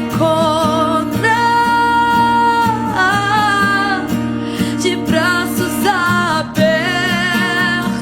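Christian worship song: a singing voice holding long notes over strummed acoustic guitar.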